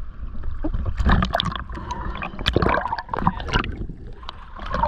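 Choppy seawater slapping, splashing and gurgling against a camera held at the surface, irregular and bumpy, as waves wash over it and it dips to the waterline; a low rumble runs underneath.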